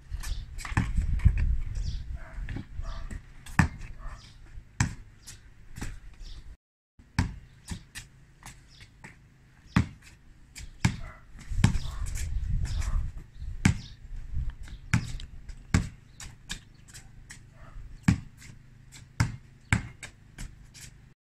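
Basketball bouncing on concrete paving slabs: a string of sharp bounces at uneven spacing during footwork drills, with the sound cutting out briefly about six and a half seconds in.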